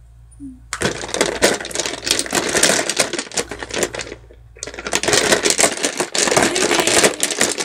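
Glass nail polish bottles clinking and rattling against each other in a plastic tub as small hands rummage through them. The clatter comes in two stretches, with a short lull about halfway.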